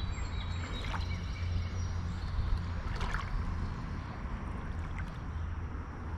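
Shallow creek water flowing and lapping steadily, over a low steady rumble, with a few faint ticks.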